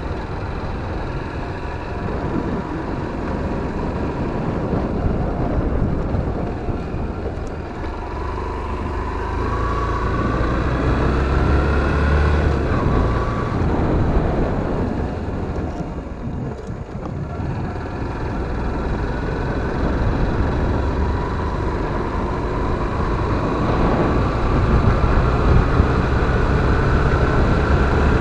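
Motorcycle engine running while being ridden, its pitch rising as it speeds up about ten seconds in and again over the last several seconds, with a brief dip about halfway. Wind rumbles on the microphone underneath.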